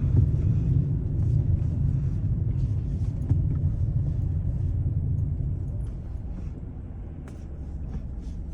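2012 Hyundai Accent driving, heard from inside the cabin: a steady low rumble of road and engine noise that gets quieter about six seconds in.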